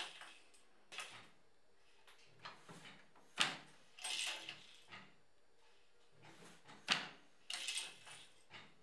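Wooden handloom being worked by hand: the shuttle slides through the warp and the reed beats each weft thread into the cloth with a sharp wooden knock, twice, about three and a half seconds apart, with softer sliding and rattling between.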